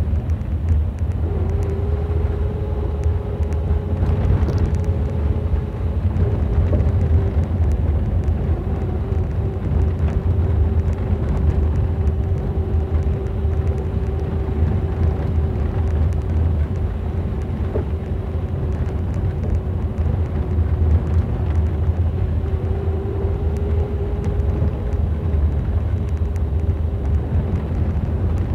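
Inside the cabin of a 1977 Triumph Dolomite 1850 HL cruising: the 1850 cc slant-four engine's low drone and road rumble, with a steady transmission whine held at one pitch.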